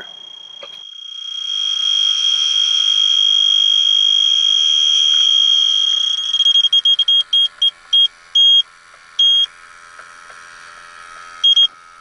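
TIF ZX electronic refrigerant leak detector alarming at a heat pump's indoor coil: a high steady tone that swells up and holds for several seconds. It then breaks into quick beeps that grow sparser and stop, with two more short beeps near the end. This is the sign that it is picking up R-410A refrigerant leaking from the coil.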